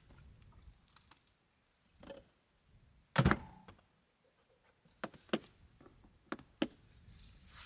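Things being handled in a plastic cooler in a pickup's bed as a beer can is fished out: one loud thunk about three seconds in, then four sharp knocks and clicks.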